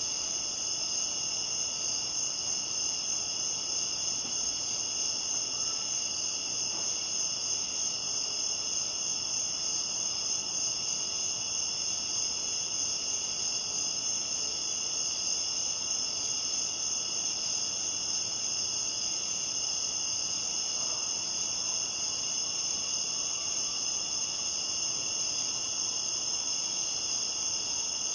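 A steady night chorus of crickets and other insects, several high-pitched trills overlapping without a break.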